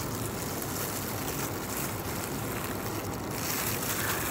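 Steady room noise: an even hiss with a faint low hum, without clear clicks or knocks.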